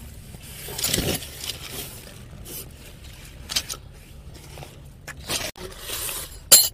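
Irregular scraping and rustling of objects being handled, a few short scrapes spread through, the loudest near the end.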